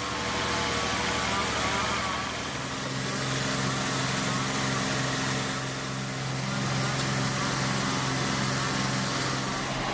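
Sawmill band saw machinery running: a steady motor hum over a constant hiss, settling to a firmer, even hum about two and a half seconds in.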